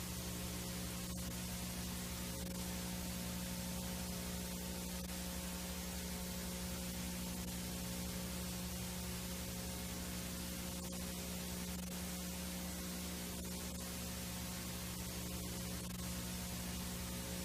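VHS tape playback noise: a steady hiss with a low mains hum and its overtones underneath.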